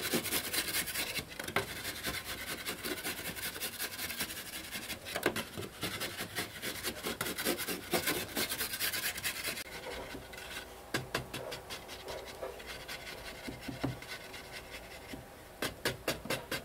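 A flat hand tool scraping a dry mud wall: dense, busy scraping for about the first ten seconds, then softer separate strokes, about three or four a second.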